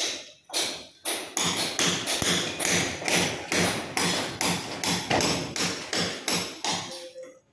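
Rapid, regular knocking, about three strikes a second, dying away near the end.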